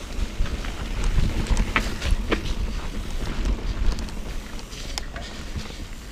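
Wind buffeting the camera microphone on a moving mountain bike, with a steady low rumble and tyre noise on the dirt trail, and scattered sharp clicks and rattles from the bike passing over the trail surface.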